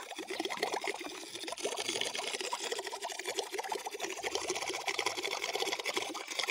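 Air from a balloon bubbling out under water at the stern of a plastic-bottle boat, a steady rapid bubbling and churning of water in a plastic tub.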